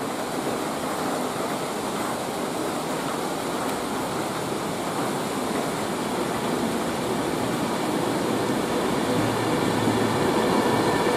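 Steady hiss of rain with a train drawing near, the sound slowly growing louder and a faint whine coming in near the end.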